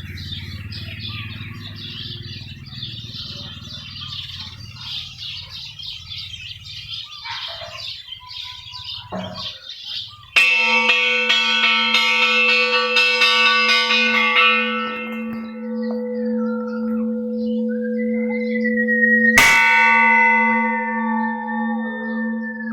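Large Thai temple bell struck twice, about nine seconds apart, each stroke ringing on with a long, steady low hum under bright overtones that fade. For the first ten seconds before the first stroke, birds chirp in the background.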